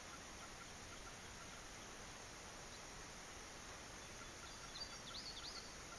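Quiet field ambience: a faint insect chirp repeating about two or three times a second, with a few short, high bird calls about five seconds in.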